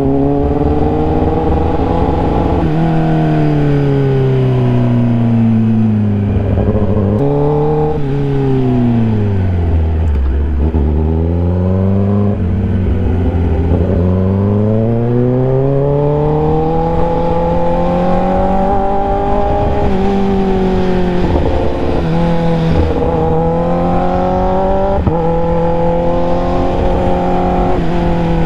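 Kawasaki ZX-10R's inline-four engine under way on the open road, its pitch climbing and falling as the rider accelerates and eases off. There are sudden steps in pitch at gear changes, a few seconds in and again around seven seconds. The engine slows to its lowest pitch around ten seconds, then climbs back up.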